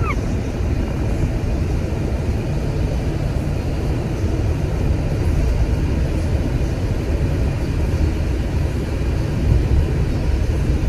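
Steady road and engine rumble inside the cabin of a moving car.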